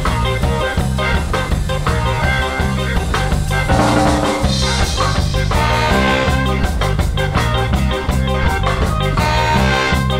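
Live band playing a reggae–tsifteteli fusion tune: bass and drums hold a steady, repeating groove under keyboard and guitar, with a trumpet playing the lead line.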